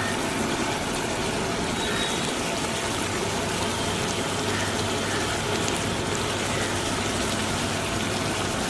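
Chicken masala cooking in a pan with a little water added, simmering with a steady, even hiss.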